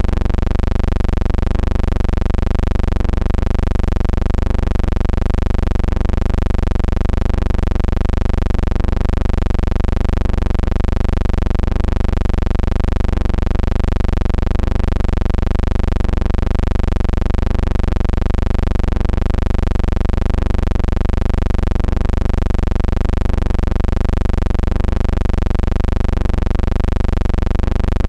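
Steady loud low hum with hiss above it, wavering slowly and pulsing faintly at an even pace; no crowd, ball or speech sounds.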